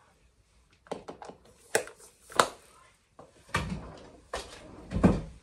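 A series of short knocks and clunks, about seven spread over a few seconds, as things are handled and set down on a kitchen worktop, with a couple of heavier thuds near the end.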